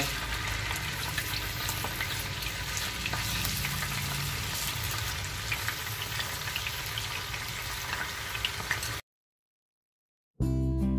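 Tofu pieces deep-frying in plenty of hot oil in a pan: a steady sizzle with scattered pops and crackles as the tofu crisps. The sizzle cuts off abruptly about nine seconds in, and after a short silence acoustic guitar music starts near the end.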